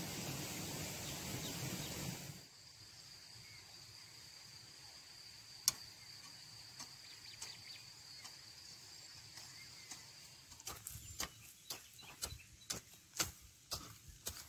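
A steady rushing noise for about two seconds, then quiet outdoor ambience. From about ten seconds in, a hand hoe's blade chops into dry soil in a run of sharp strikes, about two a second.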